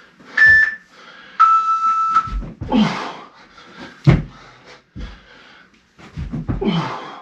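Workout interval timer beeping: a short higher beep, then a longer, lower beep ending about two seconds in, marking the start of a work interval. Then heavy breathing and a few dull thumps on the floor, roughly two seconds apart, from chest-to-floor burpees.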